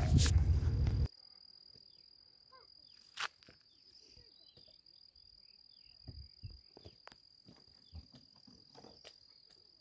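Wind buffeting the microphone for about the first second, cutting off suddenly; after that, a faint steady high-pitched insect trill with a few faint ticks and clicks.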